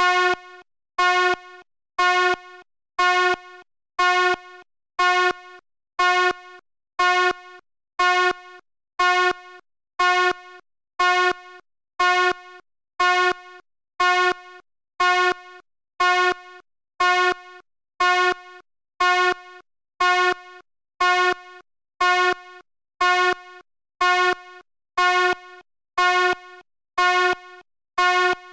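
Fire alarm sounding short, pitched horn blasts about once a second, repeating evenly without pause.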